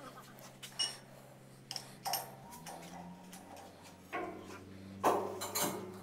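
Scattered metallic clinks and taps of tools and bolts being worked on a machine bed, one with a short ringing ping about a second in and the loudest near the end. A low steady hum runs underneath and shifts in pitch about halfway through.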